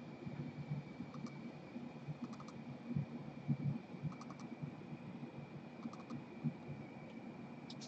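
Faint computer mouse and keyboard clicks, in small groups of two or three every second or two, with a thin steady high whine underneath.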